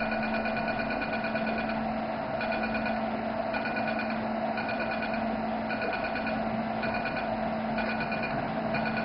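Velure S5 532 nm diode laser's emission beeps: short pulsing beeps about half a second long, repeating roughly once a second after a pause near the start, each marking the laser firing as it treats. A steady low hum lies underneath.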